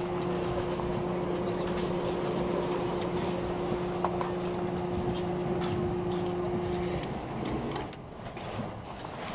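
Cabin noise of an E657-series limited express train running at speed: a steady rumble of wheels on rail with faint ticks and a steady low hum that stops about seven seconds in, after which the noise drops a little.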